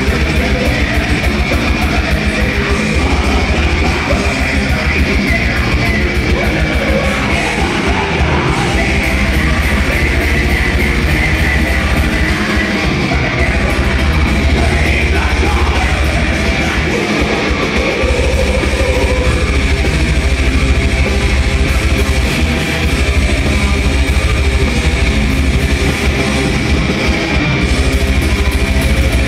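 Heavy metal band playing live at full volume: distorted electric guitars, fast dense drumming and harsh shouted vocals, without a break.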